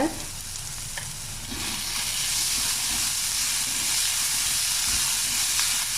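Chopped onion sautéing in a little hot oil in a kadai, a steady sizzle that grows louder about one and a half seconds in.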